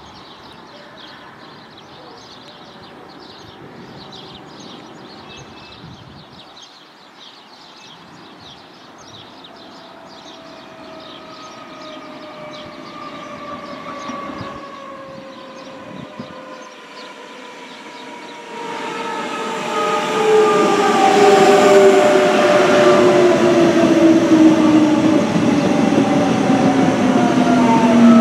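Electric suburban train's traction motors whining with several tones that fall steadily in pitch as it slows. The sound grows much louder about two-thirds of the way through as the train draws near.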